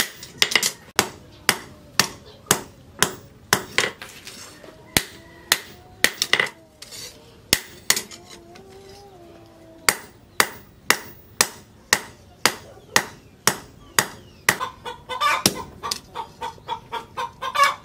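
Hand hammer striking a red-hot leaf-spring steel blade on a steel post anvil, sharp ringing blows about two a second, with a pause in the blows in the middle; near the end the blows fall on a punch held on the glowing steel. A rooster crows in the background during the pause, and chickens cluck near the end.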